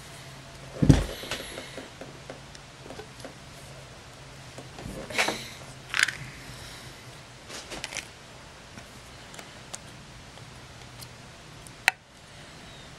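Handling noise from a partly disassembled Canon PowerShot SX130 compact camera being picked up and set down on a towel: a thump about a second in, a few knocks and clicks of the plastic body around the middle, and one sharp click near the end.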